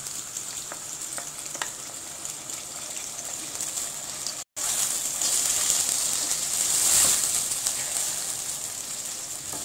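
Potatoes and fresh fenugreek leaves sizzling in hot oil in a stainless steel pot, stirred with a wooden spoon. The sizzle breaks off for a moment about halfway through and comes back louder as the leaves are turned into the oil.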